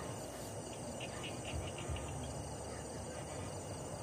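Night insects, crickets among them, chirping steadily, with a quick run of chirps between about one and two seconds in at roughly five or six a second. A few low thumps sit underneath.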